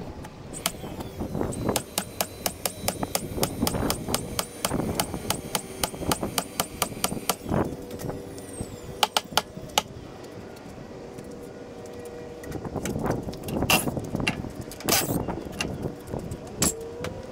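A fast, even run of sharp clicks, about four or five a second, for several seconds, then scattered sharp knocks on wood, and a cordless drill whirring up briefly near the end.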